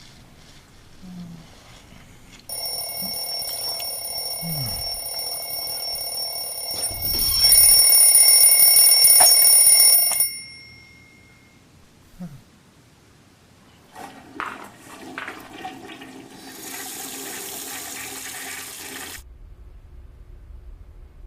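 An alarm ringing continuously for about eight seconds, getting louder for its last three seconds, then cutting off abruptly. A few seconds later comes a rushing noise lasting about five seconds.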